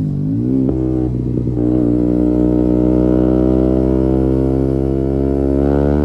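KTM Duke 125's single-cylinder four-stroke engine through an Akrapovic exhaust under riding load. The revs dip and rise in the first second, then climb slowly and steadily as the bike accelerates.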